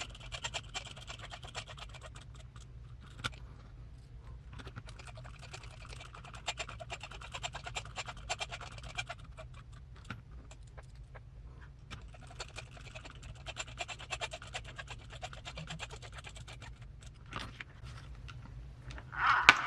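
Rapid small clicking and scraping of a hand hex driver turning screws into an RC crawler transmission, in three stretches with short pauses between them.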